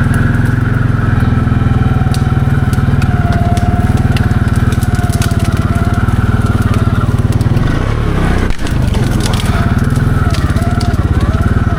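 Can-Am 700 XMR ATV engine running steadily under load over rough ground, with scattered cracks and snaps as brush and sticks break under the tires. The engine note dips briefly about eight seconds in.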